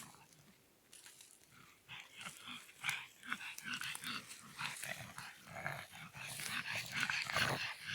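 Pugs and a chihuahua growling and snuffling, mixed with crackly rustling, busier from about two seconds in.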